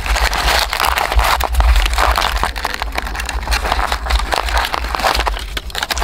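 Thin shaved-wood sheets (kyōgi) crinkling and crackling as hands bundle them and tie them with twine: a dense, irregular run of small crisp clicks.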